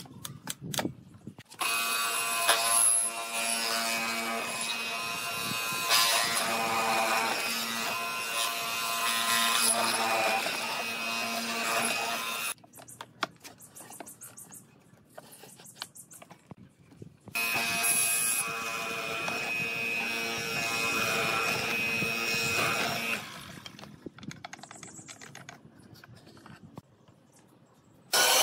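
Bench hollow-chisel mortising machine running, its electric motor giving a steady whine as the square chisel cuts into the board. It runs for about ten seconds, stops for about five seconds with a few clicks and knocks, then runs again for about six seconds before dying away to light clicking near the end.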